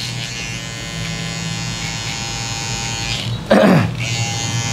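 Cordless electric hair trimmer buzzing steadily as it edges the hairline around the ear and nape. About three and a half seconds in there is a brief, louder sound that falls in pitch.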